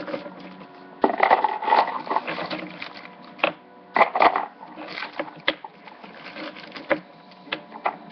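Small polymer clay charms being gathered off a sheet of paper and dropped into a plastic container: paper rustling and handling noise, with a run of light clicks and knocks as the pieces hit the container and each other.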